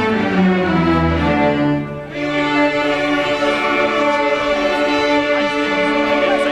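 School string orchestra playing, violins and cellos holding sustained chords, with a brief drop in volume about two seconds in.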